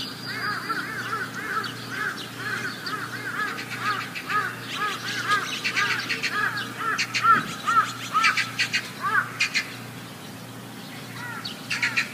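A flock of birds calling over one another in many short, quick, arched notes, with clusters of harsher calls in the middle and again near the end, and a brief lull shortly before. A faint steady low hum runs underneath.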